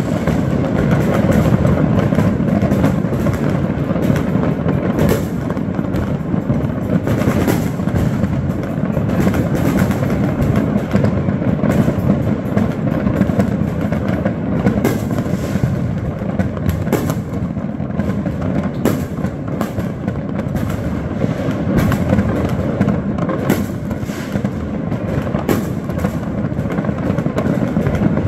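Continuous din of many fireworks and firecrackers going off at once: a steady rumble dotted with frequent sharp bangs and crackles.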